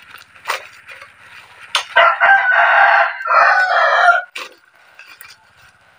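A rooster crows once, starting about two seconds in and lasting about two seconds. Around it come short crackles and snaps of plastic bubble-wrap packaging being pulled open.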